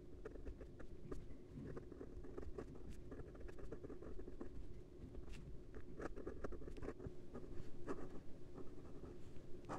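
A fountain pen's broad Bock steel nib writing on notepad paper: faint, soft scratching of the pen strokes, with a few light ticks as the nib lifts and lands between words. The nib is smooth with a good amount of feedback.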